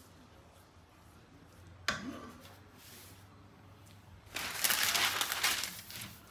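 A sharp knock about two seconds in, then a large sheet of paper crinkling loudly for a second or two as it is pulled out and spread flat on the counter.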